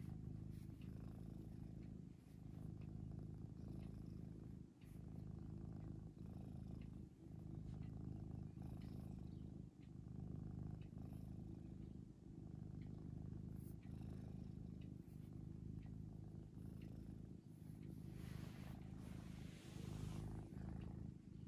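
Domestic cat purring steadily while being scratched under the chin, the low rumble dipping briefly every couple of seconds as it breathes. A soft rustle joins it near the end.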